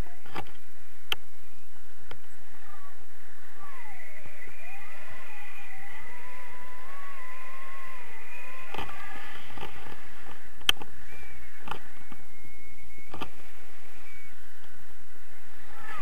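Wind rushing over the camera in flight under a paraglider, with a wavering whistle and a few sharp clicks, the loudest about two-thirds of the way through.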